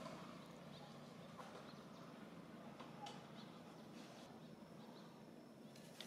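Near silence: faint outdoor ambience with a few faint, short, high chirps scattered through it.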